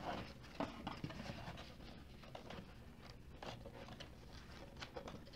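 Faint rustling of a paper instruction manual being lifted from a cardboard box and leafed through, with a few light taps.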